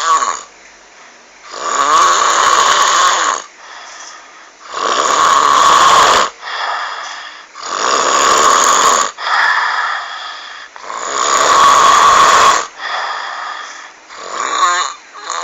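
A person snoring loudly with a croaking, frog-like sound. Four long snores come about three seconds apart, with quieter breaths between them and a short fluttering snore near the end.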